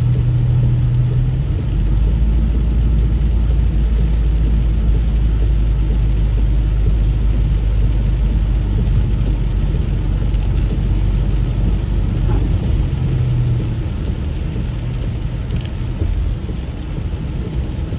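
Car interior noise while driving on a rain-soaked road in heavy rain: steady low engine and road rumble under a hiss of tyres on wet pavement and rain. The rumble grows deeper and stronger about two seconds in and eases a little near the end.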